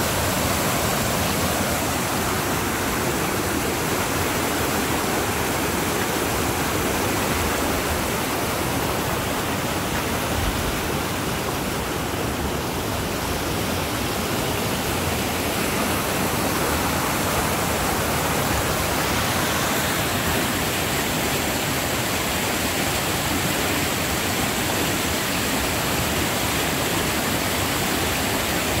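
Floodwater rushing through the rapids of a rain-swollen creek: a loud, steady rush of water.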